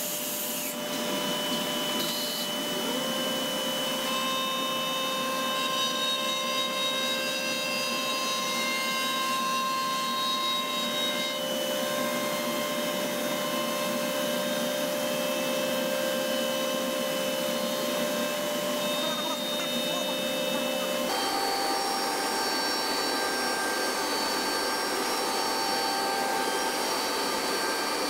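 CNC router spindle milling a curved profile into laminated MDF: a steady loud cutting noise with several whining tones. The tones shift abruptly about three quarters of the way through as the cut changes.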